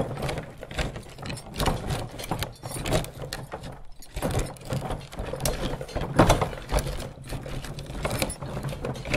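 Fully loaded covered wagon rolling over a rough, rocky road: wooden wheels and wagon body rattling, creaking and knocking in a constant clatter over a low rumble, with no horse hooves.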